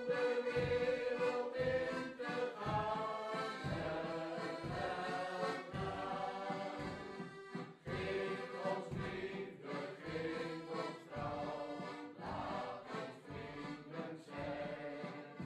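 Background music with voices singing together over a steady low beat.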